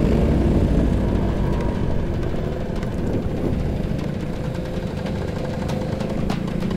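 Scooter engines running at low speed in a group ride, heard from on board one scooter: a steady low rumble with a faint steady whine above it.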